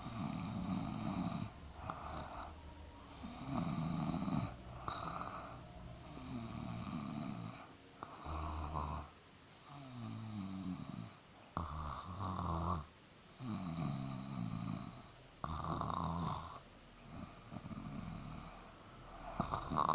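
A person snoring, one rough, rattling snore every second or two, some with a wavering pitch.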